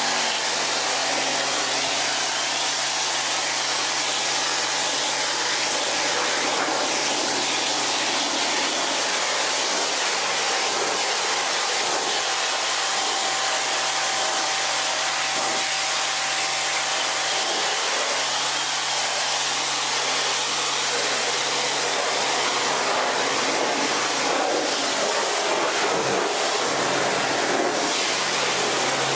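Kranzle K10/122 TS 240-volt electric cold-water pressure washer running steadily, its motor and pump humming under the loud, even hiss of the high-pressure jet spraying onto paving slabs.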